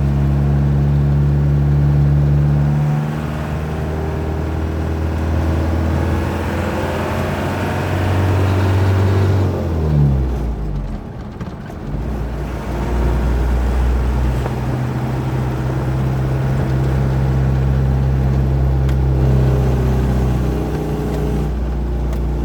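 Truck engine running on the road, heard from inside the cab. Its note climbs, then falls away with a short lull about ten seconds in, and settles back to a steady run.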